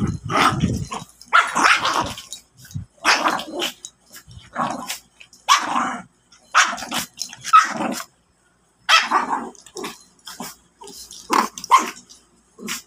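Two dogs, a Shih Tzu and a Jack Russell terrier puppy, play-fighting with growls and barks: about a dozen short outbursts one after another, with a pause of about a second just past the middle.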